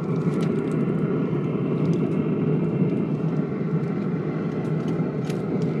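A steady low rumble, with a few faint metal clicks as a rotisserie spit holding a foil-wrapped pork butt is seated back into its mount on a pellet smoker.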